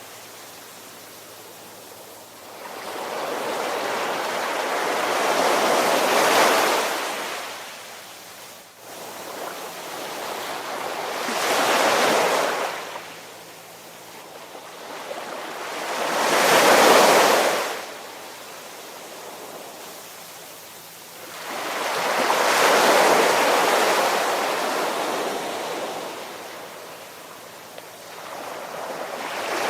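Ocean waves surging in and receding, each wash swelling up and dying away, about five in a row at roughly five-to-six-second intervals.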